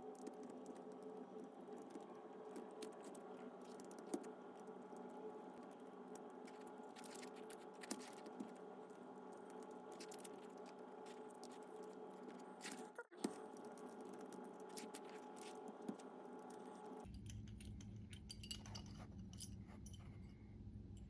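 Faint light clinks and ticks of small screws and metal wheel parts being handled while an RC crawler wheel is taken apart, over a steady faint hum that stops near the end.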